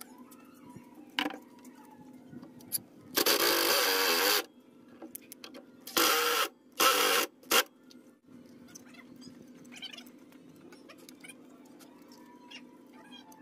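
Cordless drill driving screws into wood in bursts: one run of about a second, then three shorter bursts a couple of seconds later. Light clicks of screws and washers being handled come in between.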